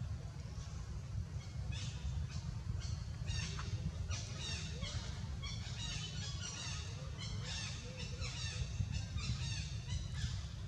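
Birds calling in quick, repeated chirping phrases, heard over a steady low rumble.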